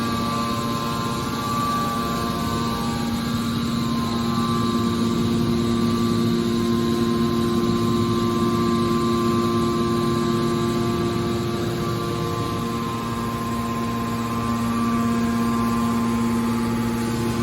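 Hydraulic scrap metal baler's power unit running: a steady motor-and-pump hum with a few constant tones over a noise haze.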